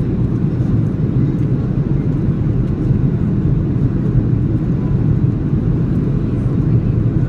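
Steady low rumble of a Boeing 737 in flight, engine and airflow noise heard inside the passenger cabin.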